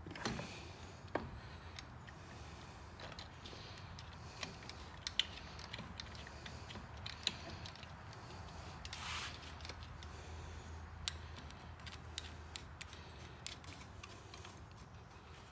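Faint, scattered metallic clicks and light scrapes as an outboard's cylinder head and its head bolts are handled and fitted onto the engine block, with a short rustle about nine seconds in, over a low steady hum.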